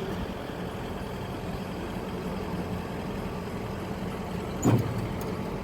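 Heavy truck engine idling steadily, with a brief loud thud about four and a half seconds in.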